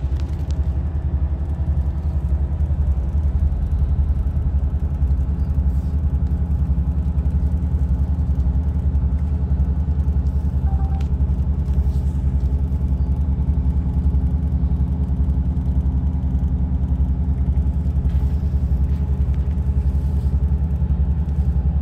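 Steady low drone inside the cab of a car-transporter truck cruising on a motorway: its diesel engine and tyre noise.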